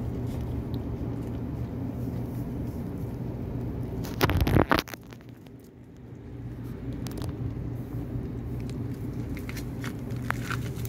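A kitten chewing chicken and rice, with soft crunches and small clicks of teeth over a steady low hum. A loud rustling bump comes about four seconds in.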